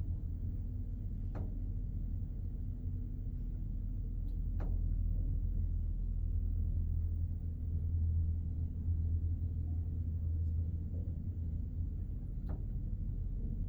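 Passenger elevator car travelling in its shaft: a steady low hum and rumble, with three faint ticks along the way.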